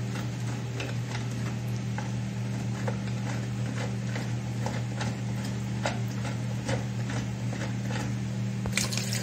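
Faint, irregular clicks and taps of plastic cistern fittings being handled by hand inside a toilet tank, over a steady low hum.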